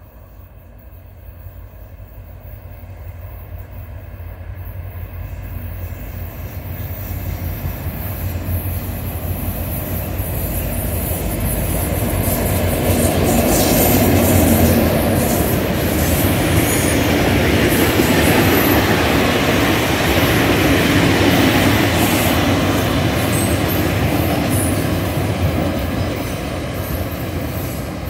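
Freight train loaded with grain, hauled by a series 2044 diesel locomotive, approaching and rolling past close by. It grows steadily louder until the locomotive passes about halfway through, then the loaded wagons keep rumbling and clattering by.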